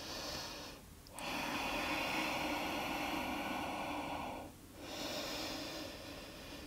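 A person breathing slowly and deeply, close to the microphone: a breath ends about a second in, a long breath of about three seconds follows, and after a short pause another begins.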